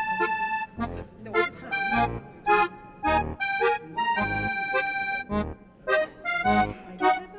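Background music: a melody of held notes over a steady low beat of about two thumps a second.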